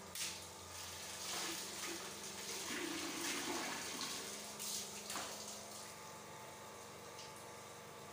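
Water poured from a plastic dipper splashing over a person's body in a bucket bath, in several uneven pours over the first five seconds or so, then easing off.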